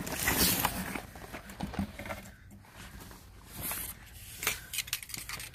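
Cardboard boxes scraping and rustling against each other as they are pulled out of a large carton. The noise is loudest in the first second, with scattered knocks and taps later.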